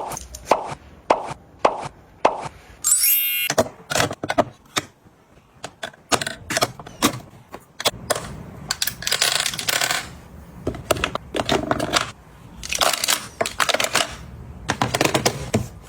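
Small items being handled and set down: a run of sharp clicks and taps, a brief ringing rattle about three seconds in, and stretches of rustling in the second half.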